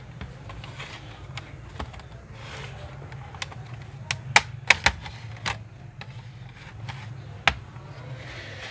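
Sharp plastic clicks and snaps as the palmrest top cover of an HP Pavilion G4 laptop is pried off by hand, its retaining clips unlatching from the base one after another. The loudest snaps come in a quick cluster about four to five seconds in, with one more near the end, over a steady low hum.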